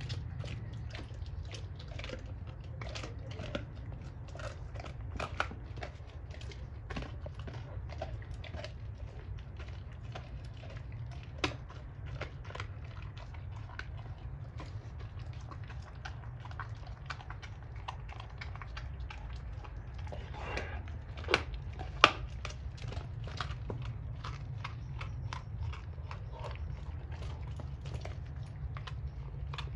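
Doberman chewing and gnawing a raw pork bone with meat on it: irregular wet crunching and cracking. A few sharper snaps stand out, the loudest two close together about two-thirds of the way through, over a steady low background hum.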